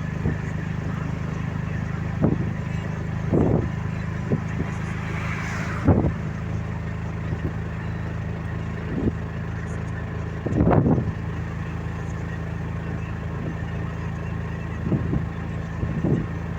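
Steady low engine drone of a vehicle moving along the road, with short thumps every few seconds, the loudest about ten seconds in.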